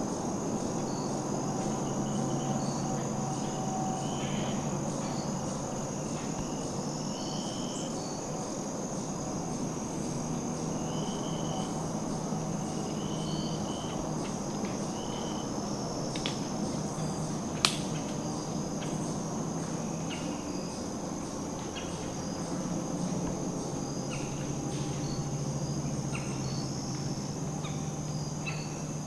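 Crickets and other insects chirping and droning steadily in a woodland, with short repeated chirps over a continuous high whine. One sharp click rings out about halfway through.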